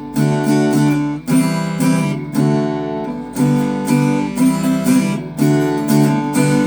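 Baby Taylor small-bodied acoustic guitar, freshly strung with Elixir 80/20 bronze strings, strummed in chords about once a second with lively, ringing sustain.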